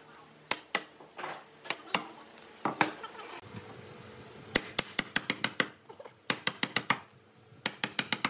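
Wood chisel being struck to chop out the waste between saw cuts in a hardwood board: sharp knocks, scattered at first, then quick runs of several taps a second about halfway through and again near the end.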